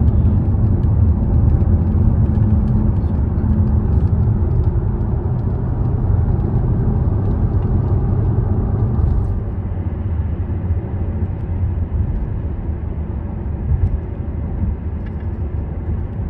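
Steady road and engine noise inside the cabin of a Jaguar XKR cruising at highway speed, its supercharged V8 running under a low rumble of tyres and wind. It eases slightly after about ten seconds.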